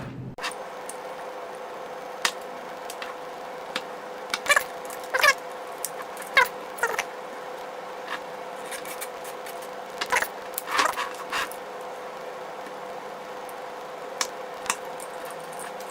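Zip-tie tails being trimmed off with cutters and handled: a scattered series of sharp clicks and snips, several close together around the middle, over a faint steady hum.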